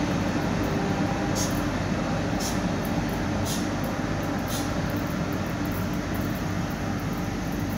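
Intercity train of coaches with an E401 electric locomotive running away from the platform, a steady rumble of wheels on rail slowly fading, with faint ticks about once a second.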